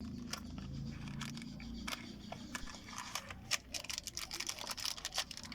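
Irregular clicks, scrapes and crinkling from close-up hand handling, growing busier after about two and a half seconds, over a low hum in the first two seconds.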